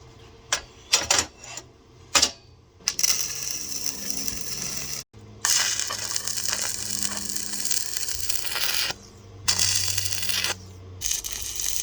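Stick welder arc crackling and sizzling on steel tubing in runs of a few seconds with short breaks, after a few sharp metallic taps in the first couple of seconds as the electrode is struck.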